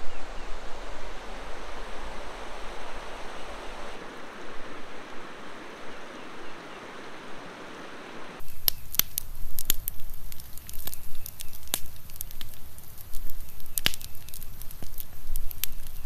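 A river rushing steadily for about eight seconds, then a sudden change to a crackling campfire: irregular sharp pops and snaps over a low rumble.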